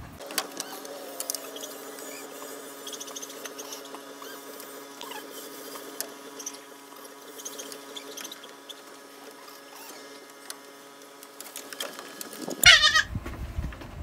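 A young kid goat gives a loud, quavering bleat near the end, over a faint steady hum.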